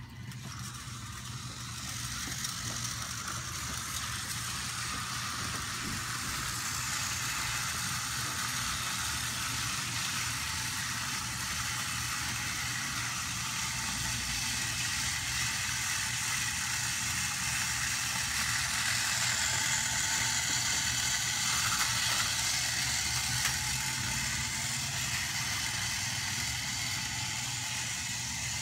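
Several battery-powered Thomas & Friends TrackMaster toy trains running at once on plastic track: a steady whir of small electric motors with the clatter of wheels and cars on the track. It grows louder about two seconds in.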